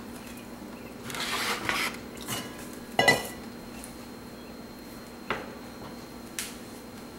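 Stainless steel mixing bowl handled on a wooden counter: a second of rustling, then one loud clank with a brief metallic ring about three seconds in, and two lighter knocks later.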